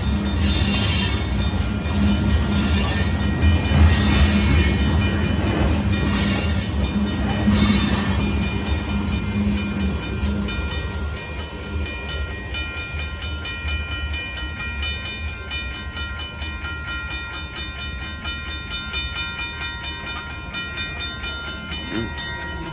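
Loaded freight train rolling past on the rails: a heavy low rumble with repeated bursts of wheel-on-rail noise for about the first eight seconds, then growing fainter as the train draws away. Thin steady high tones of wheel squeal run throughout.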